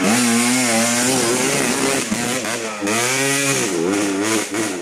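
Dirt bike engine revving on a hill-climb attempt: held at a steady pitch for about two seconds, then dropping off and rising again in two shorter revs.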